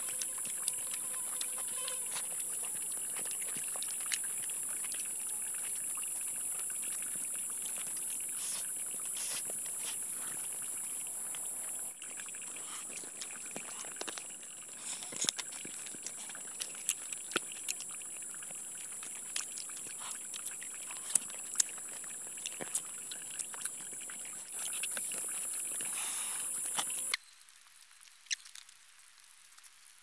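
Steady high-pitched drone of forest insects that breaks off briefly twice and cuts out abruptly near the end, with scattered small clicks and taps over it.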